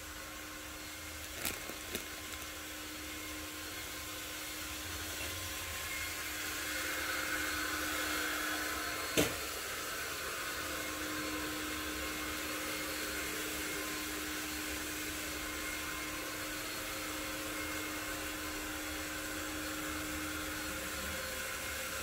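Supermarket background noise: a steady hiss with a low machine hum, like ventilation or refrigeration running, with a few short clicks, the loudest about nine seconds in.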